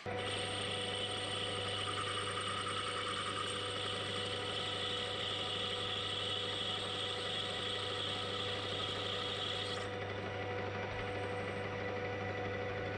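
Metal lathe switched on and running steadily with a motor hum while a cutting tool turns down the outside diameter of a brass bush. The higher-pitched cutting noise stops about ten seconds in, and the lathe keeps running.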